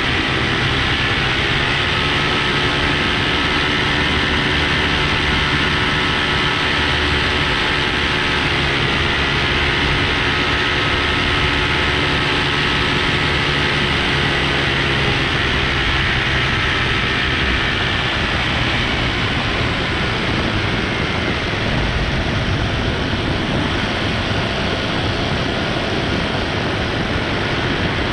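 Paramotor engine and propeller running steadily in flight, mixed with wind hiss; the engine pitch sags a little about halfway through and comes back up.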